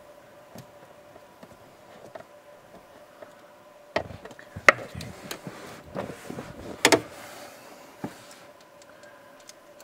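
Scattered sharp clicks and knocks of a socket extension and bolt against the plastic blower motor housing as a bolt is started by hand, about five of them from about four seconds in.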